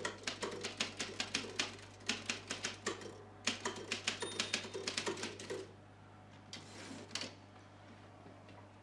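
Typewriter keys clacking in quick runs of strokes, then a few last strokes about a second later before the typing stops.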